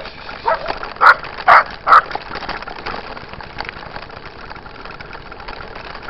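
Small dog barking about five times in quick succession, the last three barks the loudest, about one to two seconds in. After that only a steady rolling noise from the bikes on the dirt road.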